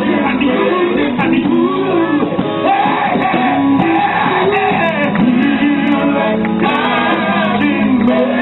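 Live gospel band playing, with a voice singing over it.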